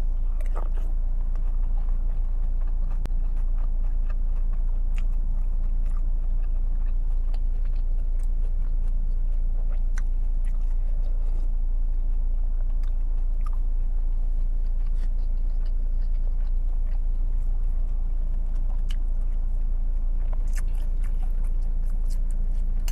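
Close-up chewing and eating of bakso, a mouthful of noodles and meatball soup, with scattered short clicks of a metal spoon and fork against a ceramic bowl. Underneath runs a steady low hum inside the car's cabin.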